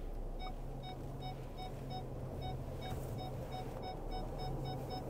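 Car's electronic warning chime beeping steadily, about three short pitched beeps a second, over the parked car's low steady hum.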